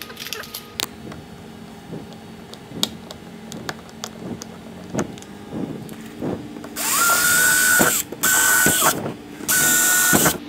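Clicks and knocks of a cordless drill being handled and its bit fitted, then the drill spinning up and running in three short bursts with a steady whine as it bores 3/8-inch holes through a plastic kayak hull.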